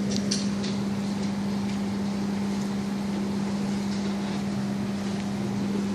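Steady low electrical-sounding hum with a constant rush of room noise, and a few faint clicks near the start.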